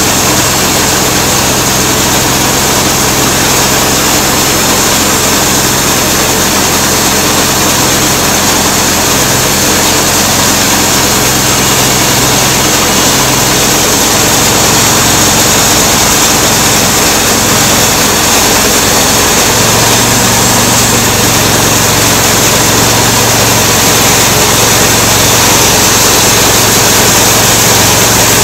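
Small engine driving a homemade bandsaw mill, running steadily under load as the blade saws through a black walnut log. The engine note drops a little about halfway through and shifts again about two-thirds of the way in.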